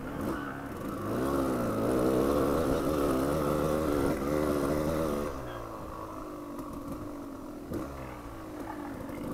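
Dual-sport motorcycle engine revving up and down under changing throttle, then dropping to a lower, steadier note about five seconds in.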